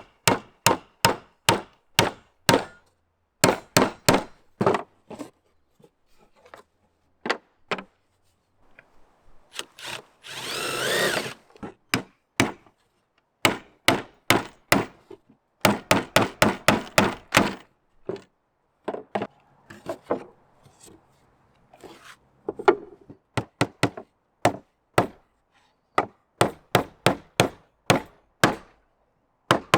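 Hammer striking nails into scrap wood in quick runs of blows, about three a second, with pauses between runs. A short rasping noise, like a saw stroke, comes about ten seconds in.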